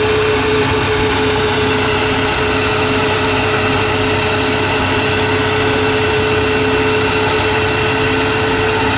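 Ford Mustang GT's 5.0-litre V8 idling steadily on a chassis dyno, an even hum with no revving.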